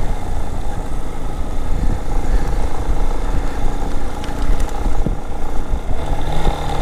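Yamaha XTZ 250 Lander's single-cylinder four-stroke engine running steadily under way on a wet road, mixed with wind rush.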